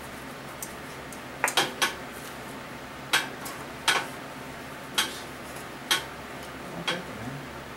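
Metal tools and bolts clinking against engine parts during a teardown: about eight sharp, separate clinks, spaced irregularly roughly a second apart.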